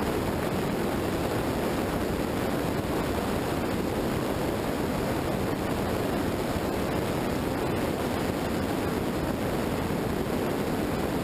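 Steady wind noise rushing over the microphone of a vehicle-mounted action camera at road speed, mixed with tyre noise from the road surface.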